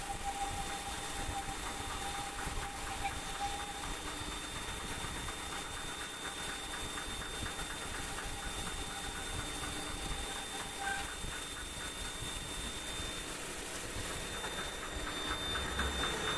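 CNC lathe machining a part under flood coolant: a steady hiss of coolant spray and cutting, with a faint thin whine.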